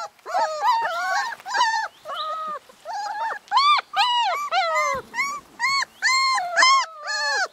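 Puppy crying: a quick run of short, high-pitched whining yelps, each rising and falling in pitch, about two a second with only brief pauses.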